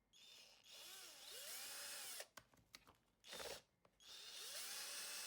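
Electric drill-driver driving screws into a 3D-printed plastic mount. The motor whirs with its pitch rising and falling, stops about two seconds in, and a few clicks and a short burst follow. It then runs steadily again from about four seconds in.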